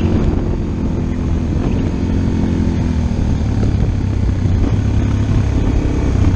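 Motorcycle engine running as the bike is ridden, heard from on board. Its pitch drops about two to three seconds in as the bike slows, then it runs lower and steady.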